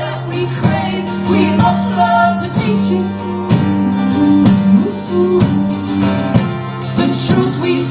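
Live acoustic guitars strumming chords in an instrumental passage of a song, with little or no singing.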